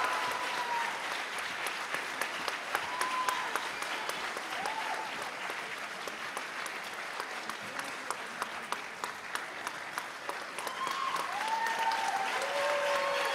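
Auditorium audience applauding steadily, with a few short calls and cheers from individual voices rising over the clapping, more of them near the end.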